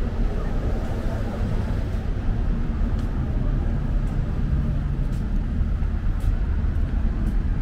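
Busy street ambience: steady traffic noise with indistinct crowd chatter.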